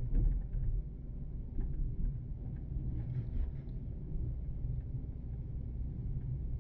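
Car driving on city streets: a steady low rumble of engine and tyres, with a brief jolt just after the start and a short hiss about three seconds in.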